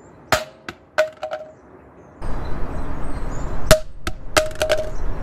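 Google Home Mini smart speaker, with a plastic body and rubber base, dropped about three feet onto concrete. A sharp hit is followed by a few quick bounces, each with a short ringing tone. A second run of hits and bounces comes about three and a half seconds in, over a steady outdoor noise.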